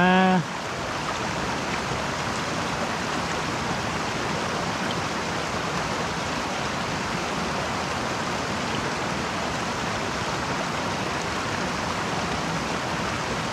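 Shallow rocky mountain stream running over stones and small cascades: a steady sound of flowing water.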